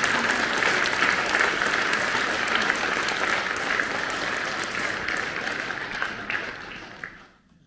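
Audience applauding, the clapping growing gradually quieter and fading out near the end.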